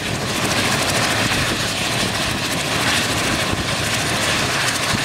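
Mil Mi-35 attack helicopter running on the ground before take-off, its twin turboshaft engines and five-blade main rotor turning, giving a steady turbine-and-rotor noise.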